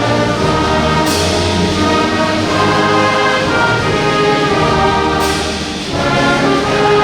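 Band music led by brass instruments, with two crashes: one about a second in and one about five seconds in.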